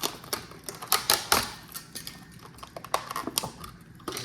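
A run of irregular sharp clicks and taps from kitchen things being handled on the counter as the butter is got ready for the pan.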